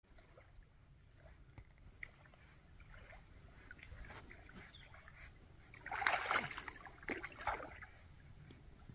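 Faint splashing of a German shepherd puppy swimming and paddling in a lake, with louder splashes about six and seven and a half seconds in.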